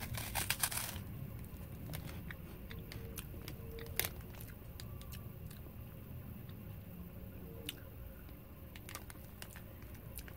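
A bite into a crunchy Umaibo puffed corn stick, a quick cluster of crunches in the first second, then chewing with scattered soft crunches, one sharper about four seconds in.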